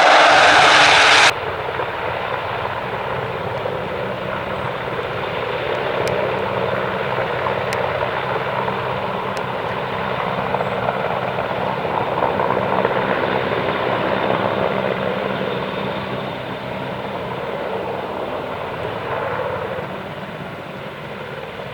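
Military aircraft engines running in a steady drone. A louder, brighter rush cuts off abruptly about a second in, and the engine drone carries on, easing slightly near the end.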